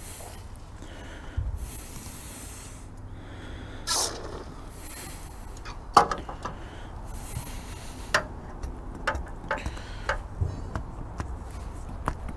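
Short hissing bursts of an aerosol lubricant can spraying into an outboard's rubber fuel hose, with handling clicks and knocks, the loudest knock about six seconds in. A low wind rumble runs underneath.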